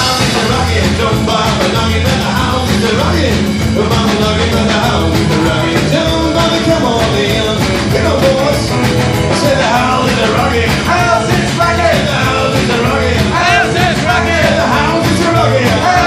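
Live rockabilly trio playing a steady up-tempo song on electric guitar, upright double bass and drum kit.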